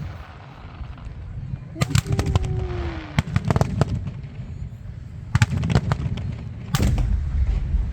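Aerial fireworks bursting in volleys of sharp bangs and crackles over a continuous low rumble, with clusters about two, three and a half, five and a half and seven seconds in.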